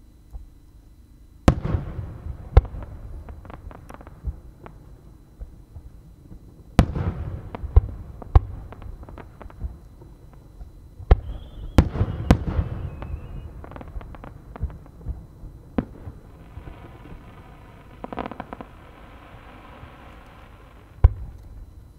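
Aerial fireworks shells bursting: about six sharp booms with echoing tails, each followed by scattered smaller pops and crackle. Near the middle a short falling whistle sounds, and near the end a few seconds of dense, steady crackling hiss.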